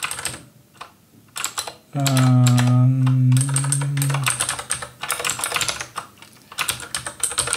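Rapid typing on a computer keyboard: quick runs of key clicks. About two seconds in, a man's voice holds a low drawn-out hum for about two seconds over the typing.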